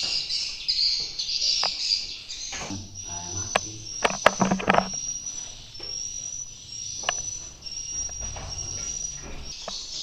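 Swiftlet calls inside a swiftlet house. A dense high twittering comes first, then short high chirps repeat evenly about every 0.7 s. A few sharp knocks come around the middle.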